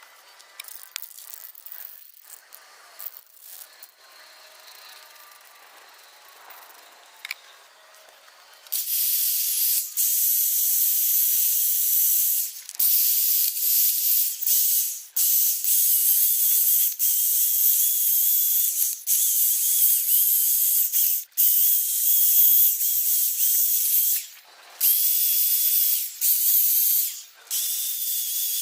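Faint clicks and handling noises, then from about nine seconds in an aerosol spray-paint can hissing in long bursts, broken by short pauses between passes.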